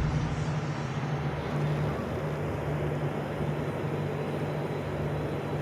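A steady low engine drone over an even rumble of running noise, with the hum broken briefly a couple of times.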